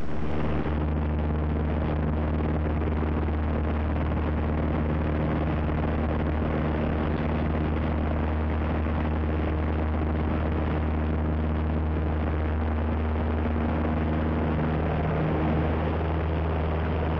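An engine running at a steady speed, a low hum that holds one pitch, shifting slightly about fifteen seconds in.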